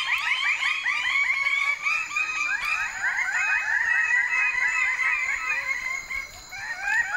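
A chorus of male Raggiana birds of paradise calling at a display site, many loud, rapid rising notes overlapping: the excited display calling set off by the arrival of females. The chorus thins briefly near the end, then picks up again.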